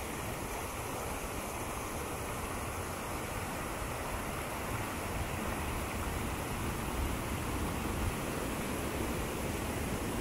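Steady rush of running water, with an uneven low rumble underneath.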